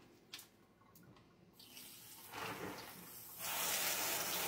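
Kitchen faucet running, its stream pouring onto blanched green beans in a steel colander sitting in ice water. After a quiet start a soft water hiss builds from about halfway, then jumps to a loud steady rush about three and a half seconds in as the tap opens fully.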